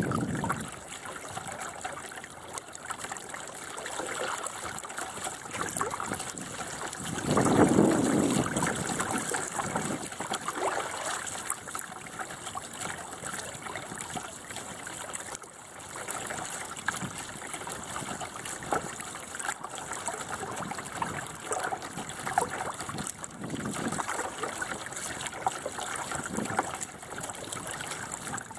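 Water gurgling and splashing along the hull of a 1988 Bauer 10 sailboat under way. A louder splash comes about seven to eight seconds in, and a smaller one later.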